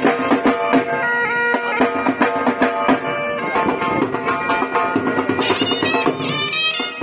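Saraiki folk music for the jhumar dance: a been (bagpipe) plays a reedy melody over a steady drone, with a dhol drum beating a rhythm underneath.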